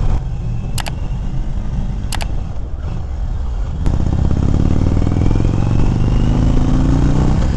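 Indian Thunder Stroke 116 air-cooled V-twin running as the bike rolls through a right turn, with three sharp clicks in the first four seconds. About four seconds in the throttle opens and the engine gets louder, its revs rising steadily as the bike accelerates away.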